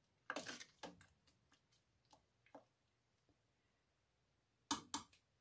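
Wooden spoon stirring a thick tomato mixture in a stainless steel pot: faint knocks and scrapes against the pot, thinning out over the first few seconds, then two sharper taps near the end.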